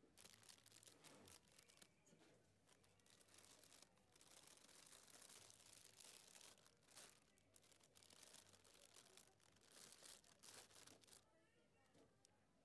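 Faint, irregular rustling and crinkling of plastic grape bags being handled, which stops shortly before the end.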